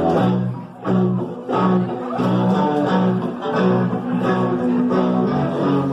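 Live rock band playing a song: strummed guitars over a repeating bass line, about two bass notes a second.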